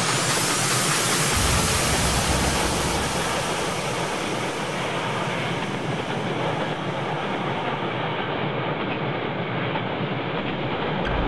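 Container wagons of a freight train rolling past close by at speed: a steady rumble and hiss of steel wheels on the rails. The high hiss dims over the last few seconds.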